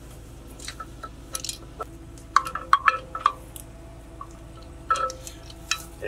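Metal winch hook clinking and knocking against a tractor's steel front frame as the winch line is hooked on: scattered sharp clinks, with a cluster in the middle and another near the end.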